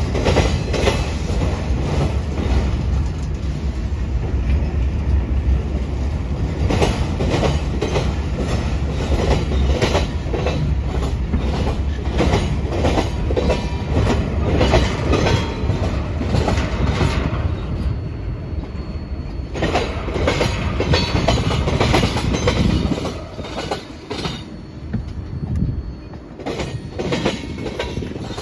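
Freight cars of a Union Pacific mixed freight train rolling past, their steel wheels clattering over the rail in a steady clickety-clack over a low rumble. About three quarters of the way through the rumble eases and the clacks come in separate groups as tank cars pass.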